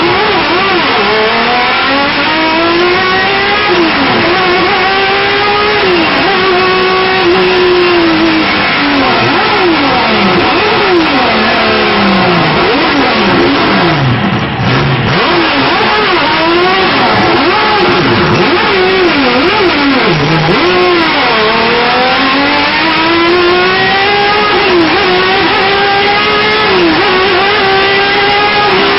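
Turismo Carretera race car's engine heard from inside the cockpit, revving up through the gears and dropping back again and again. Several quick rises and falls in pitch come in the middle.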